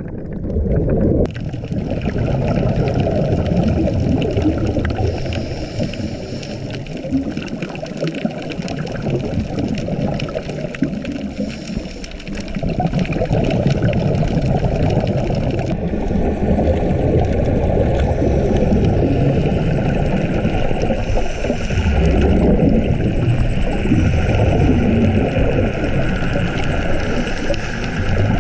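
Underwater sound on a diver's mask-mounted camera: scuba regulator exhaust bubbles and water rushing past, a continuous low bubbling and rushing that swells and eases as the diver breathes and swims down.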